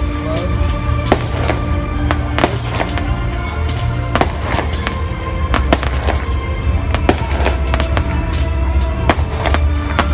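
Fireworks going off, a rapid string of sharp bangs at irregular intervals over a continuous low rumble, with music playing alongside.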